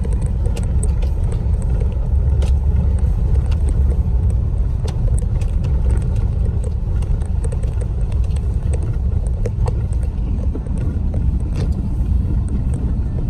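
Vehicle driving on a rough dirt road, heard from inside the cab: a steady low rumble of engine and tyres, with scattered sharp clicks and knocks from the uneven surface.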